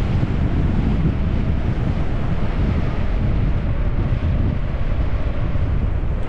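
Wind buffeting a helmet-mounted action camera's microphone as a bicycle coasts downhill at speed: a steady low rumble.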